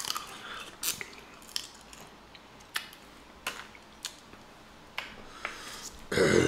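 Boiled crawfish shells cracking and snapping in irregular sharp clicks as they are peeled and eaten, with chewing. Near the end there is a louder mouth noise, under half a second long.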